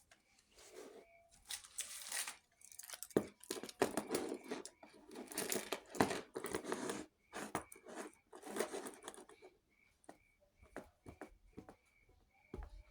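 Irregular bursts of crinkling and tearing, like paper or plastic being handled, with sharp clicks between them. A faint short high tone repeats roughly twice a second underneath.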